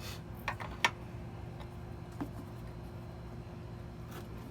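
A few light clicks and taps from bike parts being handled as the back wheel goes on, the sharpest about a second in, over a steady low hum.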